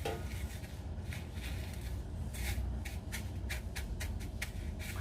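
Hands pressing and turning a soft potato croquette patty in dry toasted panko breadcrumbs: a soft, irregular crackly rustling of the crumbs, over a low steady hum.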